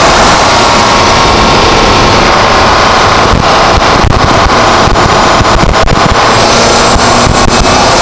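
Volkswagen GTI's turbocharged four-cylinder engine running through an APR Carbonio intake, loud and mixed with wind on the external microphone. A faint high turbo whistle falls away near the start and rises again near the end.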